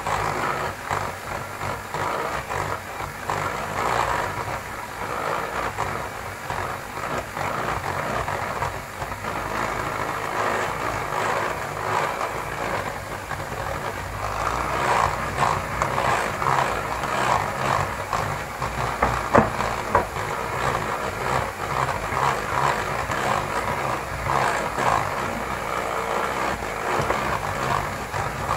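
Electric hand mixer running steadily, its beaters whisking chocolate cake batter in a glass bowl.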